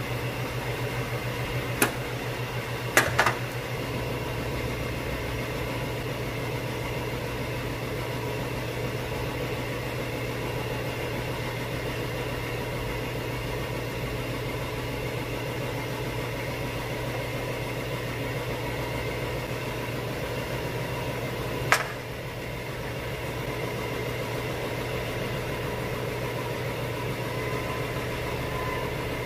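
A steady, low mechanical hum with a fine even pulse, broken by a sharp click about two seconds in, a quick double click about three seconds in, and one more click about twenty-two seconds in.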